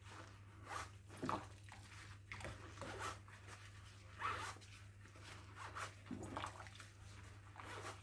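Wet sponge scrubbing the inside of a dishwasher filter part: faint, irregular rubbing strokes.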